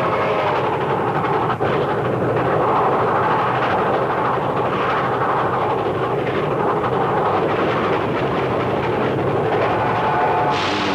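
Disney No. 2 steam locomotive running, a steady rushing rumble of the train on the move. A hiss comes in near the end.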